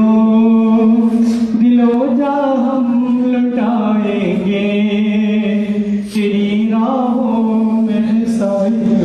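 Unaccompanied male singing of an Urdu song in praise of SIO: a long melodic passage of held notes that glide from one pitch to the next, with no clear words.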